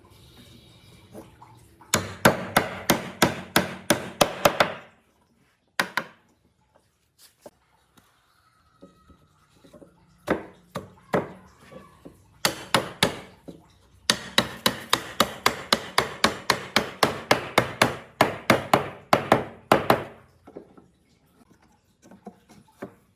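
Runs of quick hammer blows, about four a second, each with a short ring. The runs are broken by pauses holding a few lighter taps.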